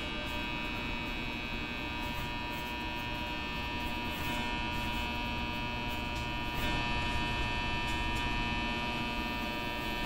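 Ultrasonic cleaner running with lawn mower carburetor parts in its bath: a steady hum with several high steady tones over a hiss.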